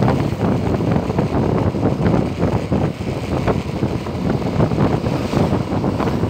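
Wind buffeting the microphone of a Yamaha NMAX 155 scooter riding at about 40 km/h, with the scooter's engine running under the rush of air.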